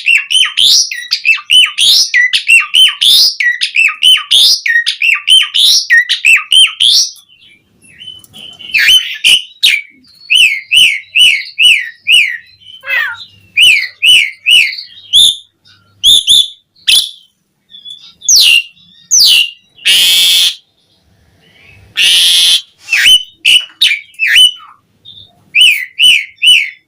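Javan pied starling (jalak suren) singing vigorously: rapid runs of short, falling whistled notes in bursts with brief pauses, broken twice in the second half by harsh, rasping calls.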